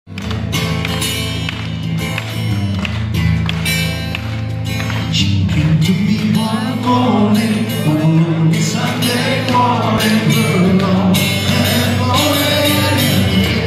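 Live rock band playing, led by a steadily strummed acoustic guitar. A male lead vocal comes in about seven seconds in.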